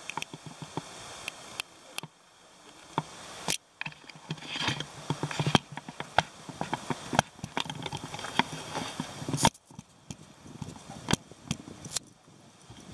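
Footsteps on dry leaf litter and twigs on a forest floor, with irregular sharp clicks and snaps and a busier stretch of rustling in the middle.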